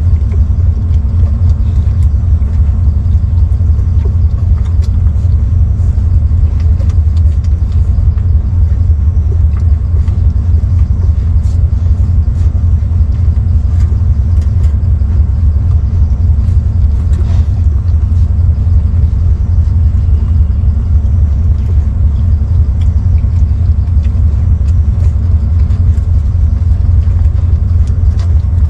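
A loud, steady low rumble that does not change.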